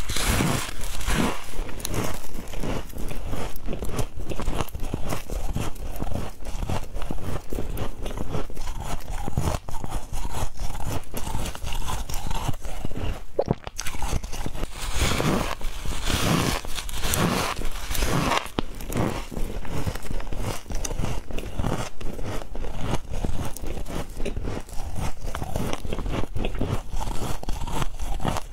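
A person biting and chewing a chunk of freezer frost: a steady run of squeaky crunches, coming in thicker clusters every second or two.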